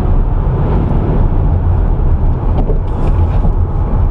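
Steady low rumble of a moving car's road and engine noise, unbroken throughout.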